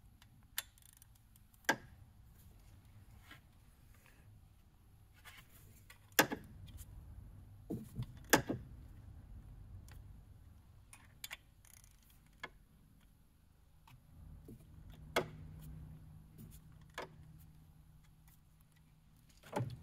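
Hand tools clicking and clinking against the metal of a diesel engine's fuel pump sprocket as its bolts are worked loose: scattered sharp single clicks, the loudest a few seconds apart near the middle. A faint low hum comes in past the middle.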